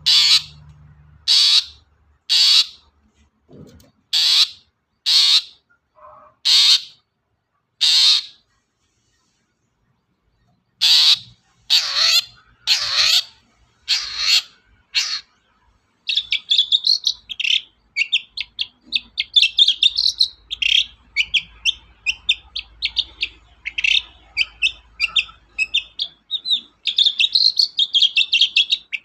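Long-tailed shrike giving short harsh calls about once a second, pausing briefly, then about halfway through breaking into a fast, continuous chattering song of quick notes.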